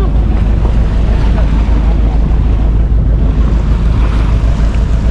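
Wind buffeting the microphone over waves washing at the shoreline: a loud, steady low rumble.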